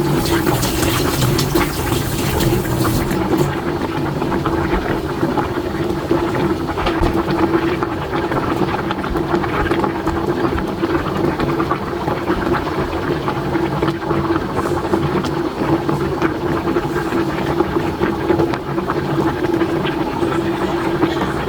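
Pot of Korean fish soup (eotang) boiling hard, bubbling steadily with many small pops over a steady low hum.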